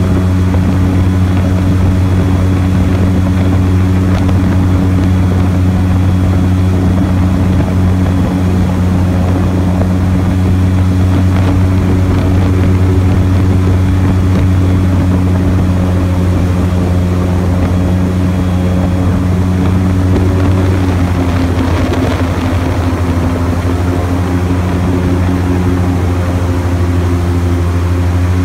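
Airboat's engine and large air propeller running steadily as the boat cruises, a loud, even hum with a brief change in pitch about two-thirds of the way through.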